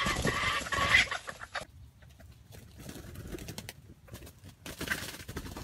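Red junglefowl rooster crowing. The drawn-out crow ends about a second and a half in, and a shorter call follows near the end.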